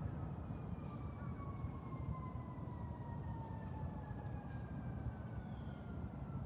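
An emergency vehicle's siren wailing: one slow tone that falls in pitch over several seconds, then begins to rise again near the end. Underneath runs a steady low rumble.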